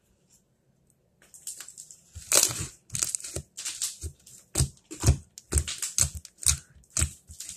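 Pink slime being stretched, folded and pressed onto a countertop by hand, making a run of sticky crackles and wet pops. They start about a second in and come irregularly, a few a second.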